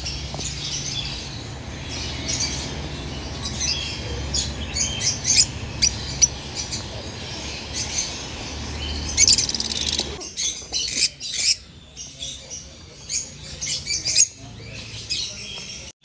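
Peach-faced lovebirds chirping and squawking in a cage: a busy run of short, sharp, high calls. A steady low hum underneath stops abruptly about ten seconds in, while the chirping goes on.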